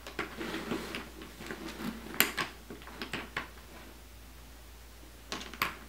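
Handling noise as small bolts are pushed through a hinge on a plastic costume panel: scattered clicks and light knocks of bolts and plastic. There is a sharp click about two seconds in and a few more clicks near the end.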